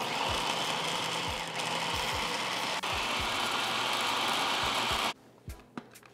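Electric food processor motor running steadily at full speed, chopping a wet blend of ginger, garlic, chilies, scallions and herbs into a paste. It cuts off suddenly about five seconds in.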